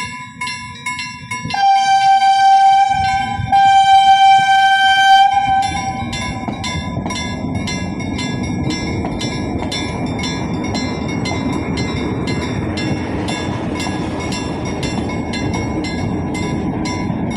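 A railway level-crossing bell rings in quick, regular strikes throughout. A train horn sounds a long blast about one and a half seconds in, with a short break partway, and fades after about six seconds. The train then rumbles past while the bell keeps ringing.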